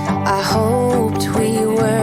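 Background music: a soft song with guitar.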